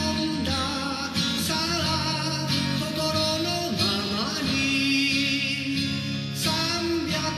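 Music: a man singing with his own acoustic guitar accompaniment.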